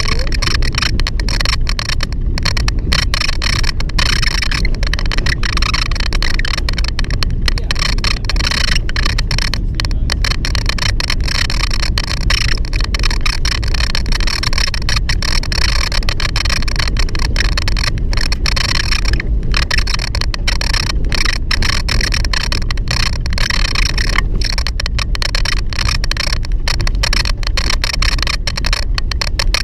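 Ride noise inside a moving vehicle: a steady low rumble of driving, with the door squeaking and rattling throughout.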